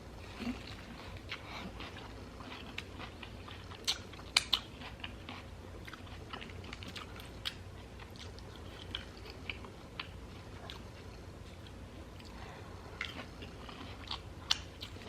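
Close-up mouth sounds of a person chewing and biting into carne asada tacos in jicama wraps: small wet clicks and smacks, with a few sharper snaps about four seconds in and again near the end.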